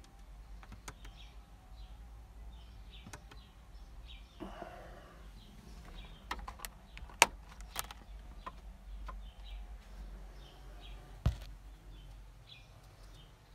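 Scattered light clicks and knocks inside a truck cab, bunched together in the middle, with one heavier low thump near the end. Faint bird chirps repeat in the background.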